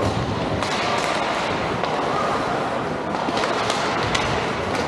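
Ice hockey game play in a rink: a steady din of arena and on-ice noise with a few sharp clacks scattered through it.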